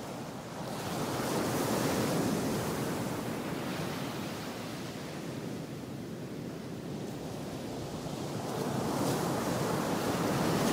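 Ocean waves washing in and out: a soft rushing surf that swells about a second in, eases off in the middle and builds again near the end.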